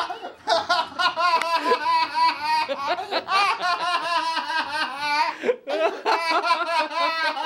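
Loud, hearty male laughter in long runs of rapid ha-ha pulses, with a short break about five and a half seconds in.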